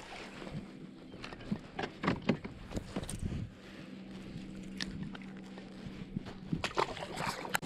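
A largemouth bass being landed into a kayak: scattered splashes, knocks and taps as the fish is brought aboard and handled, the busiest about two to three seconds in and again near the end, over a faint low steady hum.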